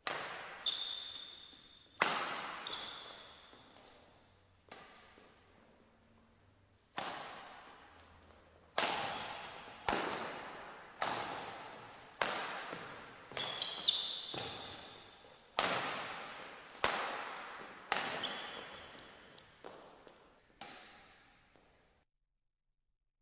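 Badminton rackets smacking a shuttlecock in a rally, each sharp hit followed by a long echo in a large hall, with short squeaks of court shoes between some strokes. The hits come about every second, bunching closer together in the middle, and stop abruptly near the end.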